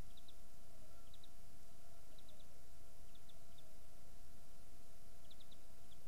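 A small bird chirping faintly, in short high chirps that come in clusters of two or three about once a second, with a pause in the middle. Under it runs a steady hiss and low rumble of background noise with a faint electrical hum.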